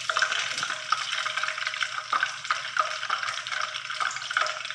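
Chicken pieces frying in hot coconut oil in a pan: a steady sizzle full of small crackles and pops, with the scoop stirring through the oil as the fried pieces are lifted out.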